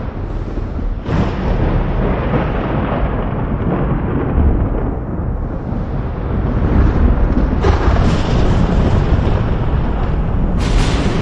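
Thunder rumbling continuously and heavily, with fresh sharp cracks breaking in about a second in, past the middle, and again near the end.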